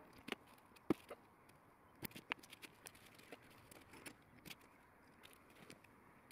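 Faint, scattered clicks and light knocks of small steel parts being handled on a workbench as a knurling tool is dismantled and reassembled: hex key, screws, spring and pivoting arms. The sharpest click comes about a second in.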